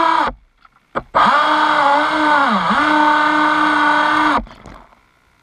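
Aquacraft 2030 brushless motor of an RC speedboat whining at high speed on 4S power. It cuts out briefly near the start, comes back about a second in, dips in pitch and recovers about halfway, then stops near the end, leaving only a faint high tone.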